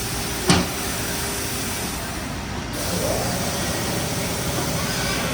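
Steady road-traffic noise, with a single sharp knock about half a second in.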